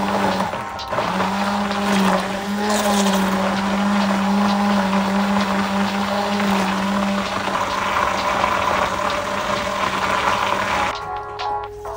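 Immersion blender running in a saucepan, puréeing whole grapes with their skins into a liquid: a steady motor hum over a churning whir. It dips briefly about half a second in and cuts off about a second before the end, when background music starts.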